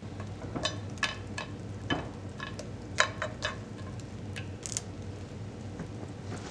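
Kitchen handling noise: scattered clinks and knocks of utensils and dishes over a steady low hum.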